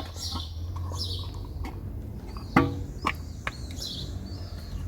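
Small birds chirping repeatedly in the background, short falling high-pitched calls every half second or so. About halfway through come a few sharp clicks and knocks, the loudest of them the first.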